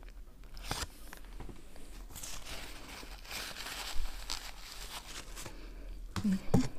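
Crinkling and rustling of a shawarma's paper wrapper and a paper napkin being handled, with chewing, and a sharp rustle about four seconds in. A short vocal sound comes near the end.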